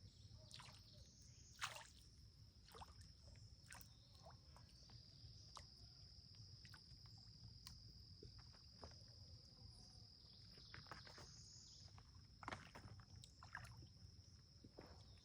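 Faint outdoor ambience: insects droning steadily at one high pitch over a low rumble, with scattered light clicks and knocks, a sharper one about two seconds in and another near the end.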